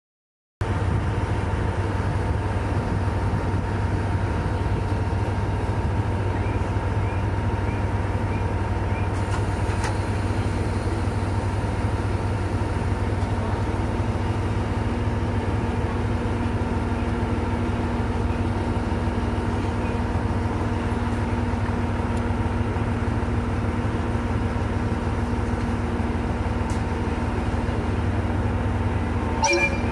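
KiHa E130 series diesel railcars idling at a standstill: a steady low engine rumble with a constant hum over it. A brief sharp sound near the end.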